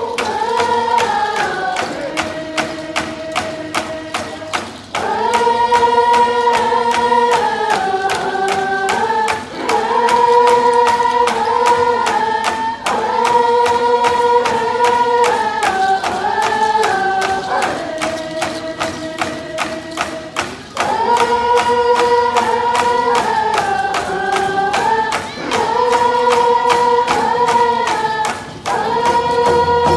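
Coast Salish group song: many voices singing in unison to a steady beat of hand-held frame drums, the sung phrase repeating every few seconds.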